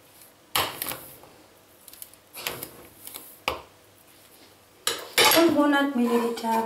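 A metal tablespoon clinks against a porcelain bowl a few times as sugar is spooned in. About five seconds in there is a louder clatter as the spoon is set down, and a brief voice follows.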